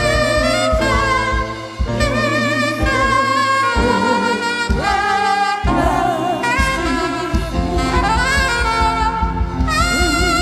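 Band music with a steady beat under a sustained, wavering melody line.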